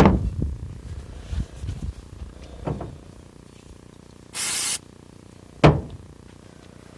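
A half-second hiss of a compressed-air blow gun about four seconds in, between a few light knocks, with a sharp knock shortly after the hiss.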